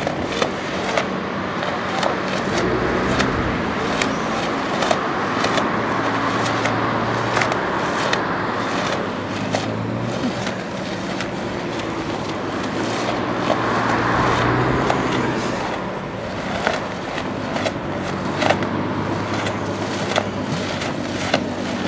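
Nissan GT-R R35's twin-turbo V6, breathing through a straight-piped Armytrix exhaust, running steadily at low revs as the car creeps along. Scattered sharp clicks and crackles sound throughout.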